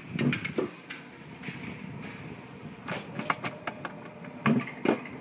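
Alpine coaster sled running on its metal rails, clattering with a string of knocks and clacks and a louder burst of knocks near the end, over a steady rush of running noise.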